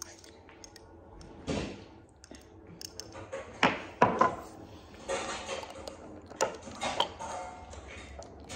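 A glass hot-sauce bottle and a metal spoon handled on a marble countertop: several sharp knocks and clinks, the loudest two close together about midway, then the bottle's cap being screwed back on near the end.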